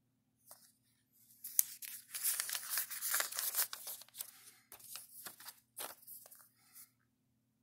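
Pages of a 1946 paper booklet being turned and pressed flat by hand: a brief paper rustle about half a second in, then a longer crinkling rustle with small clicks that thins out and stops near the end.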